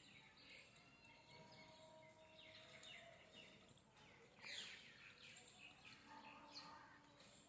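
Faint bird chirps and short calls that sweep quickly down in pitch, over low background noise, with a somewhat louder call about four and a half seconds in.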